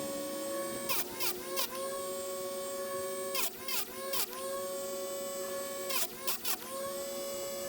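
Electric chainsaw sharpener's grinding-wheel motor running steadily, with short grinding passes as the wheel is brought down onto the chain's teeth one after another, the motor's hum dipping in pitch under each bite and recovering between them.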